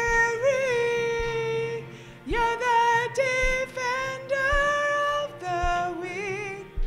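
A woman singing a worship song solo into a microphone, long held notes with vibrato in phrases, over a backing track with a low beat about once a second.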